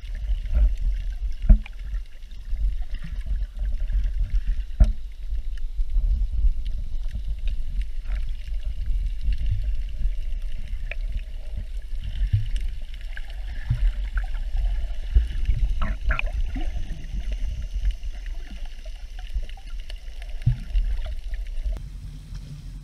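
Muffled underwater rumble and sloshing of moving water, heard through a GoPro Hero 4 sealed in its waterproof case, with scattered clicks and knocks. Near the end the rumble drops away as the camera comes up out of the water.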